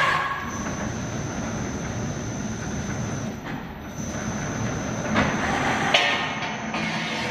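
Servo-driven roller pipe bending machine running as it draws a steel pipe through its rollers and curves it into a hoop: a steady mechanical noise with a thin high whine. A few sharp knocks come about five and six seconds in.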